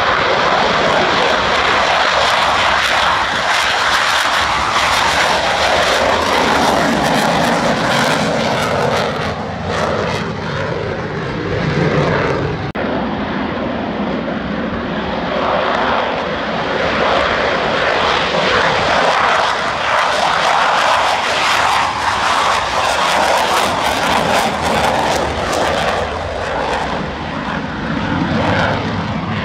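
Eurofighter Typhoon fighter jets' twin turbofan engines roaring loudly and steadily at takeoff power through the takeoff run and the climb-out, with an abrupt change in the sound a little before halfway.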